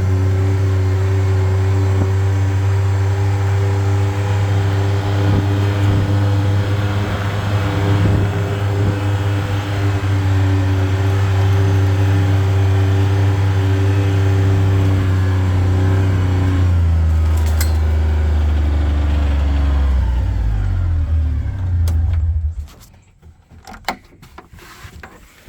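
Vehicle engine running steadily while driving, its pitch dropping about two-thirds of the way in as it slows to a stop, then shut off abruptly near the end; a few sharp clicks follow.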